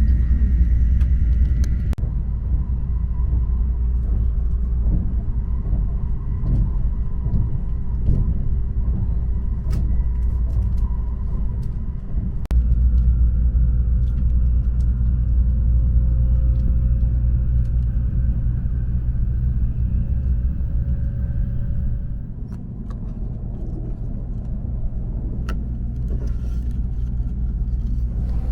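Cabin noise of a Shinkansen bullet train under way: a steady low rumble with faint whining tones above it, one of them slowly rising. The rumble changes level abruptly a few times.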